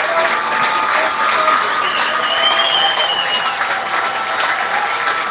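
Crowd of spectators applauding the teams running onto the field, steady clapping with high drawn-out calls rising over it now and then.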